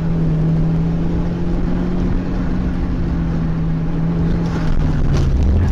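A car engine heard from inside the cabin, running at a steady low drone at cruising speed over road rumble, its note dropping near the end.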